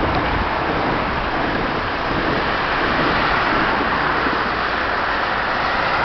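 Steady running of a MAN fire engine's diesel engine as it rolls slowly out of the station bay, mixed with wind noise on the microphone. A car passing close swells the noise toward the end. No siren sounds.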